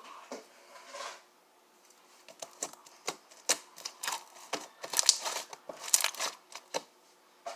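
Handling noise: an irregular run of sharp clicks and crackles that starts after a quiet stretch of about a second and is densest from about two and a half to six and a half seconds in.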